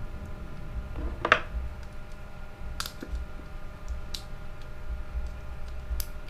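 A few scattered small clicks and taps as the spool and drag parts of a Kenzi Aica spinning reel are handled and fitted back together, the sharpest about a second in.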